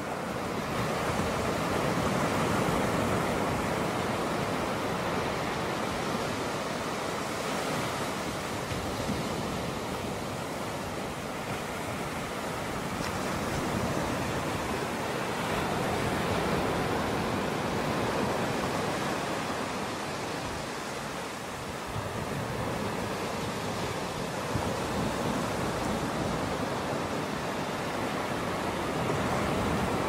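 Ocean surf breaking and washing up a sand beach: a steady rushing that slowly swells and eases.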